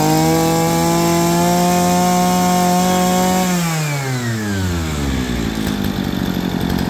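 Robin NB321 brush cutter engine (38 mm bore) running at high revs with the throttle held open. About three and a half seconds in the throttle is released and the engine winds smoothly down to a steady idle.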